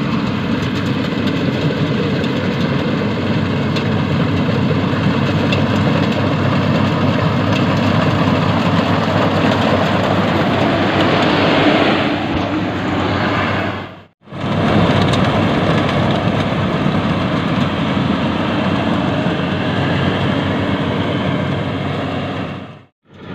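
Yanmar YH 850 rice combine harvester running steadily under load, its diesel engine and threshing machinery making one dense, continuous mechanical noise. The sound breaks off briefly about two-thirds of the way through.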